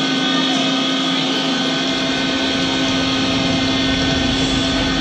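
Rice-flour chekkalu deep-frying in a large kadai of hot oil, a loud, steady sizzle and bubbling, over a steady droning hum. More low rumble comes in about two seconds in.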